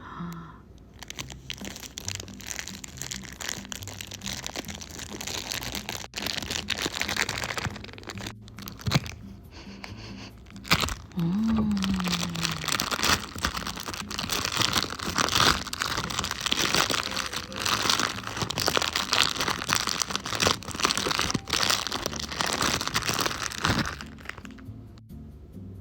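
A squishy toy being squeezed and worked by hand, giving a long stretch of dense crinkling and crunching over soft background music.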